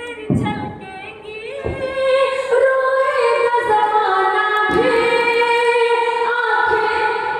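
A woman singing long, held notes, the sung opening of a Hindi geet, with a few low thumps beneath her voice.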